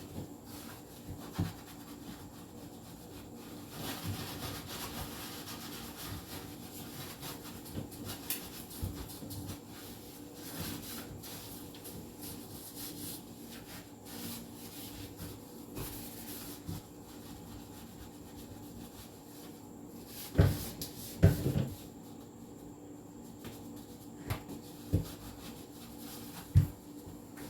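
Scrubbing and wiping inside a refrigerator, a steady rubbing, with a quick cluster of knocks about twenty seconds in and a few single knocks near the end as shelves or items are handled.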